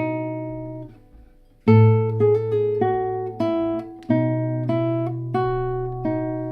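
Guitar playing a slow passage of plucked single notes over ringing bass notes; one note rings and fades for about a second before the picking resumes, with notes coming roughly every half-second.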